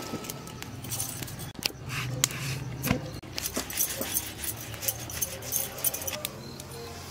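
Irregular clicks and jingles: glass and metal bangles clinking on a working wrist over an iron tawa, with a wood fire crackling in a clay chulha beneath.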